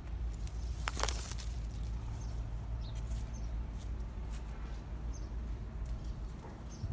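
Outdoor ambience of a steady low rumble, with faint short bird chirps every second or so and a brief rustle about a second in.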